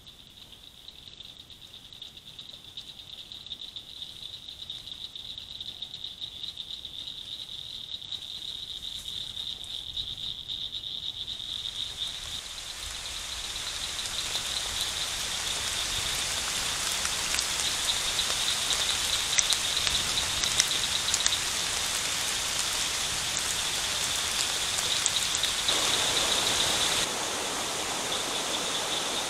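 A steady high-pitched night chorus of calling frogs or insects, joined about twelve seconds in by a loud, even wash of water noise from a rainstorm swelling the beaver pond, which grows louder toward the end.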